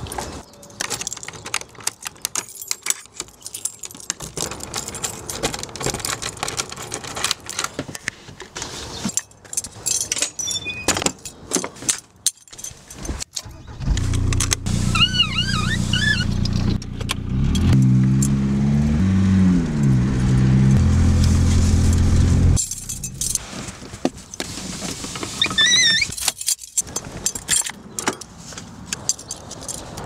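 Keys jangling and light clicks and rattles, then about halfway through a car engine starts, runs and is revved up and down a few times before cutting off abruptly after about eight seconds. Jangling and clicking follow, with a few high chirps.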